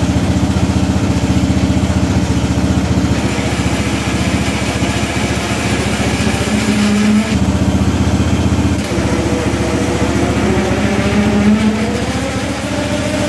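Riding-mower engine running steadily on a garden tractor built from two MTD riders. A higher whine joins about three seconds in, the low drone shifts twice, and a whine rises in pitch near the end.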